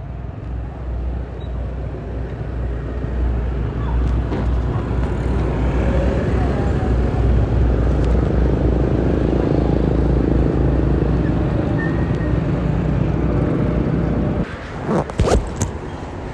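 Motorcycle engine and road noise with heavy wind rumble on the microphone, growing louder over the first few seconds and then holding steady. It falls away near the end, where a few sharp knocks are heard.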